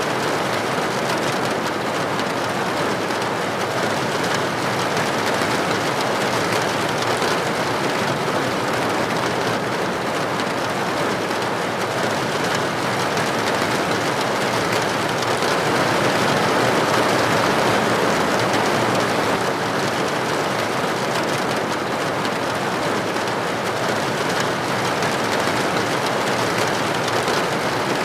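Steady rain falling on a window or roof, a dense even hiss of drops that swells slightly about two-thirds of the way through.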